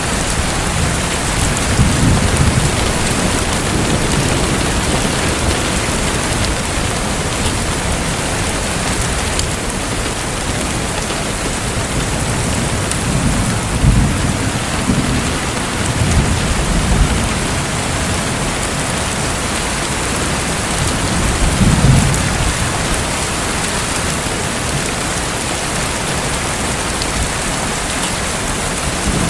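Steady hiss of falling, splashing water, with low rumbles that swell and fade several times.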